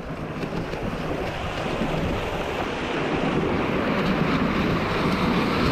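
Strong wind buffeting the microphone over the steady rush of water along a J/22 sailboat's hull, sailing in high wind.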